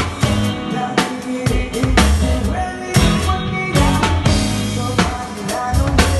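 Live band playing with a steady beat, heard from right beside the drum kit: kick, snare and cymbal hits stand out loudly over the other instruments.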